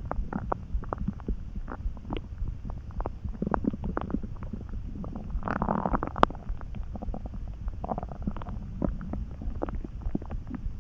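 Hungry human stomach churning: a steady low rumble with a stream of small gurgles and pops, and a louder gurgle about halfway through.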